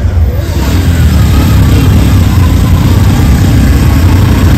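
A motor vehicle's engine running close by, a steady low rumble that grows louder about a second in.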